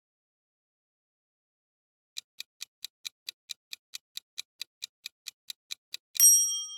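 Countdown timer sound effect: after a silent pause, rapid clock-like ticking at about five ticks a second, ending in a louder ringing chime with several steady tones that fades away.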